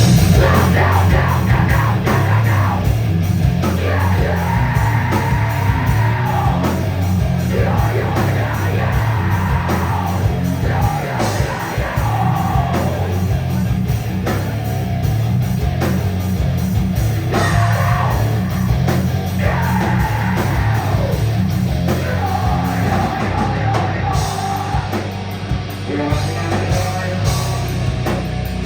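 Loud live heavy rock band playing a full song section, with a singer yelling and singing over the band.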